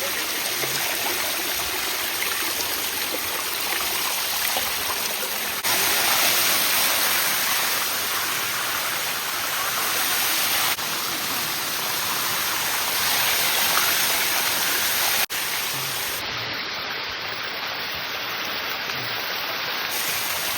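Waterfall water rushing and splashing over rock, a steady dense hiss that jumps in level a few times.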